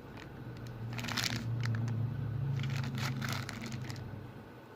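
Plastic blister packaging of a toy car crinkling in two short spells as it is handled, over a low steady hum that swells and fades.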